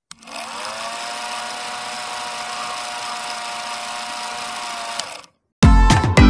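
Film projector sound: a motor whirring up to speed within the first half-second, then running steadily with a hiss, and stopping with a click about five seconds in. After a brief silence, loud music with a strong beat starts near the end.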